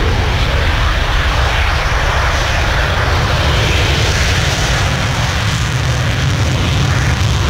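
Fighter jet's engine running loud and steady as the delta-wing jet moves along the runway, a continuous deep rumble with a hissing rush above it.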